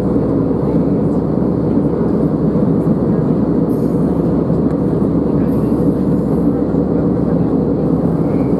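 Steady engine and airflow noise inside a jet airliner's passenger cabin at cruise, an even, low rushing drone.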